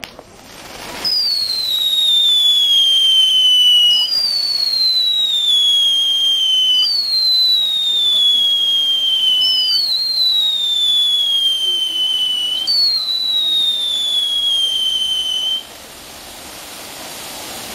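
Daytime firework fountains set off on the ground, hissing as they spray sparks, with five loud whistles one after another, each falling in pitch over about three seconds. The whistles stop shortly before the end, leaving only the fountains' hiss.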